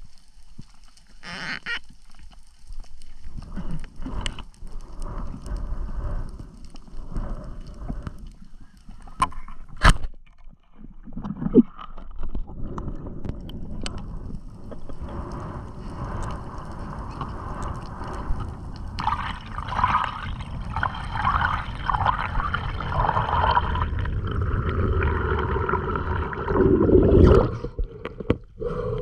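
Underwater water noise heard through a spearfishing camera: a low, muffled rush with gurgling and two sharp clicks about ten seconds in. Near the end the camera breaks the surface with a loud splash of water.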